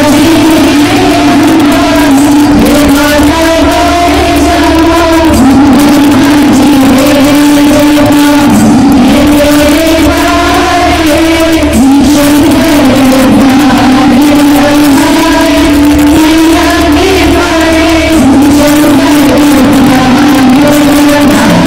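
Loud music with a singing voice holding long, wavering notes over a steady bass.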